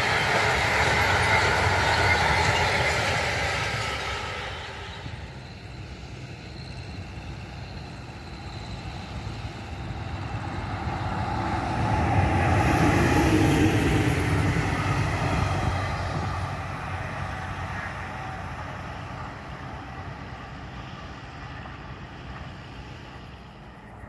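Freight train of container flat wagons rolling past on the rails, fading away over the first few seconds. About ten seconds in, an electric locomotive hauling yellow coaches comes by, loudest a little past the middle, then dies away.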